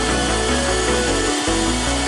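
Background music with a repeating bass line, over a handheld power drill boring into the end grain of a wooden log.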